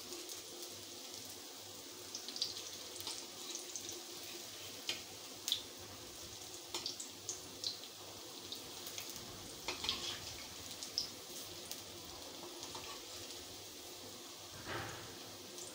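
Moong dal fritters deep-frying in hot oil in a wok, sizzling steadily with scattered crackles and pops.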